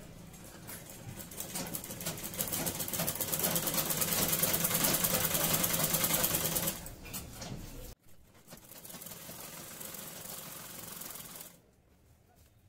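Black domestic sewing machine stitching a seam in cotton cloth to join petticoat panels. It runs with a fast, even clatter that picks up and gets louder about two seconds in, then stops short at around seven seconds.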